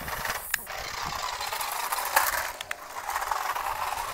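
Remote-control toy cars running: small electric motors whirring and wheels rolling, with a few sharp clicks about half a second in and again a little after two seconds.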